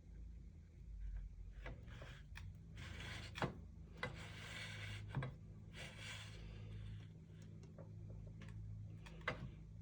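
Quiet workshop handling sounds: a few sharp knocks and short spells of scraping over a steady low hum.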